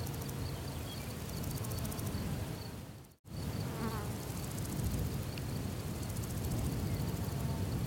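Outdoor ambience of insects buzzing and trilling in a fast, steady pulse, over a low rumble, with a few faint short chirps. The sound drops out for an instant about three seconds in.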